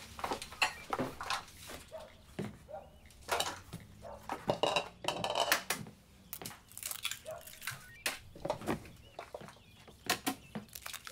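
Dishes and metal utensils clinking and clattering at a kitchen counter: an irregular run of knocks and clinks as food is prepared.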